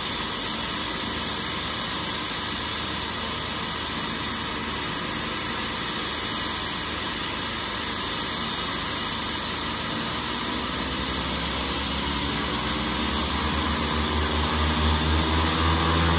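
Small propeller plane's engines running with a steady hiss, then powering up from about ten seconds in: a droning tone that rises in pitch and grows louder, as for takeoff.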